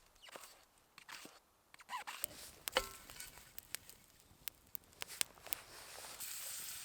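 Camp cooking gear being handled, with scattered clicks, knocks and rustles. About six seconds in, a steady high sizzle starts and builds: food beginning to fry in a hot pan.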